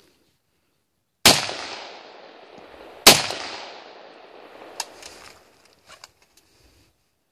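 Two AK-47 rifle shots about two seconds apart, each followed by a long echoing tail that fades slowly. A few faint clicks and knocks follow a couple of seconds later.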